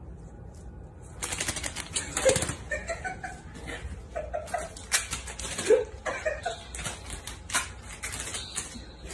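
Rapid crackling and clicking of paper towels rustling and scraping under a cat's paws on a tile floor, starting about a second in. Soft laughter from a person in the background.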